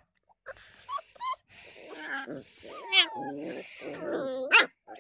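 Two puppies fighting, growling and yelping; short rising yelps about a second in, and the sharpest ones about three seconds in and again near the end.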